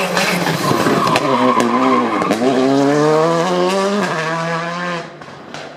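Rally car engine at full stage pace. The revs dip about two seconds in, then climb hard with a gear change at about four seconds. The engine sound drops away sharply after about five seconds.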